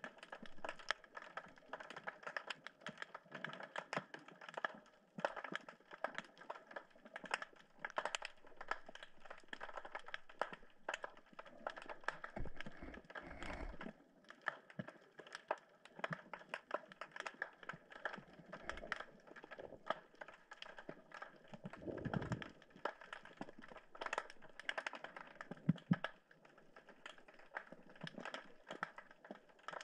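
Underwater crackle of dense, irregular clicks, typical of snapping shrimp on a rocky reef, with a few low thumps, one about halfway through and another some eight seconds later.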